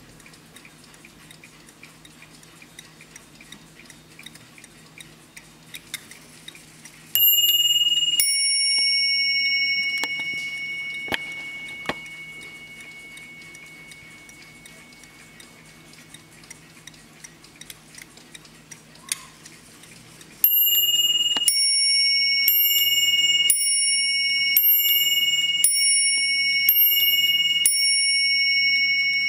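A vintage Warmink mantel clock ticks steadily. About seven seconds in, its hammers strike its two bells once each in a ding-dong that rings on and fades. From about twenty seconds, the two bells are struck in a run of strikes about one a second, ringing on under one another.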